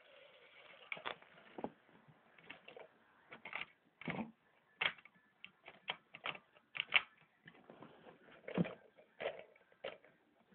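Irregular clicks and knocks of plastic and metal as a hand handles a Lionel Fundimensions B&O 4-4-0 toy steam locomotive, fifteen or so with uneven spacing. The loudest and deepest come about four and eight and a half seconds in.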